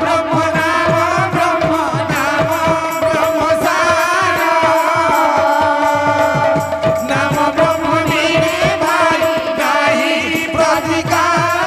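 Sambalpuri kirtan music: voices singing over a steady held tone, with regular drum strokes that bend down in pitch.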